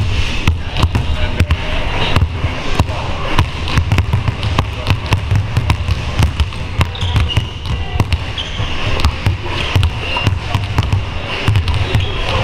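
Several basketballs bouncing on a hardwood court in a large empty arena: many dribbles overlapping in an irregular, continuous patter of low thuds.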